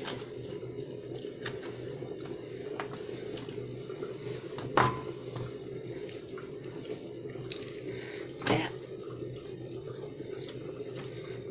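A metal spoon scooping avocado flesh from the skin, with two sharp knocks about five and eight and a half seconds in, the first with a short ring, over a steady low hum.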